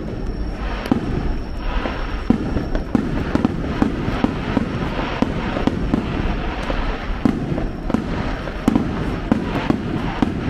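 Fireworks going off: a dense, continuous crackle of rapid pops, with a few louder bangs scattered through.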